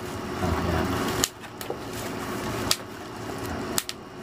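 Handling noise from a zippered hard-shell carrying case being turned over in the hands: soft rubbing and rustling with a few sharp clicks.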